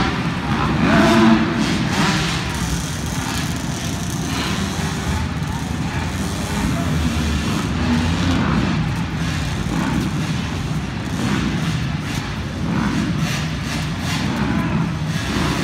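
Small two-stroke engines of KTM 50 mini motocross bikes running as they race around the track, mixed with voices in the background.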